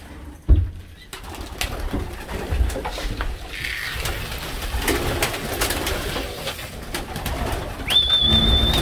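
Racing pigeons cooing and shuffling about inside a loft, with wing flaps and clicks from their feet. There is a loud thump about half a second in, and a short, high, steady whistle near the end.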